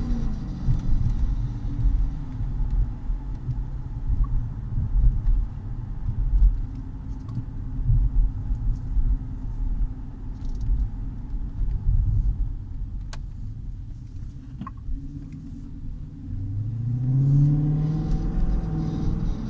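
2016 Dodge Challenger's 5.7 L Hemi V8 driving with a steady low rumble, easing off through the middle and then accelerating with rising pitch near the end. The owner finds a whine-like noise from the car not normal and doesn't know its cause.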